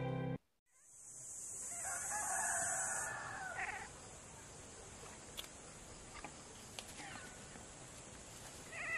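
A rooster crowing once, a call of about two seconds that starts about two seconds in and rises at its end, over a steady high hiss. Background music cuts off abruptly just before.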